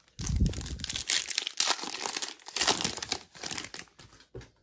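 The foil wrapper of a trading-card pack crinkling as it is handled and torn open. The crackling is continuous and stops about four seconds in.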